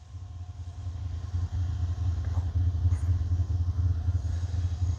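Low, steady engine rumble of a motor vehicle passing close by, growing gradually louder.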